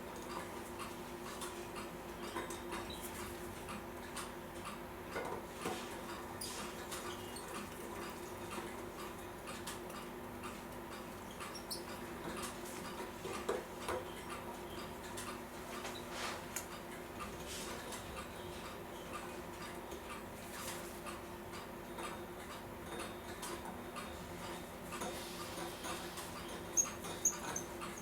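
Steady clock ticking over a constant low hum, with a few sharper light clicks, among them a pair near the end, from small brass and steel clock parts being handled during assembly.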